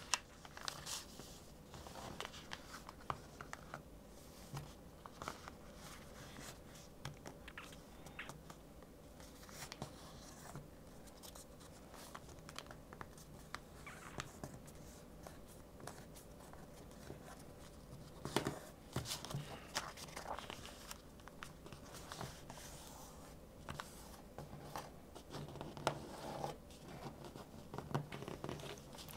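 Faint rustling and crinkling of a sheet of paper being folded and its creases pressed down by hand, with a few sharper crackles about two-thirds of the way through and again near the end.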